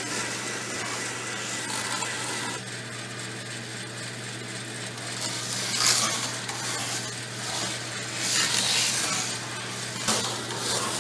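CoasterDynamix model roller coaster running: the small coaster trains rattle along the plastic track, swelling louder as they pass about six, nine and ten seconds in, over a steady low hum from the coaster's motor.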